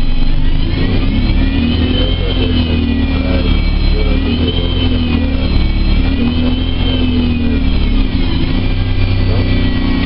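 ADL Enviro 200 Dart single-deck bus heard from inside the passenger saloon, its diesel engine running under way, with a high whine that rises in pitch as the bus pulls away and then rises and falls several times.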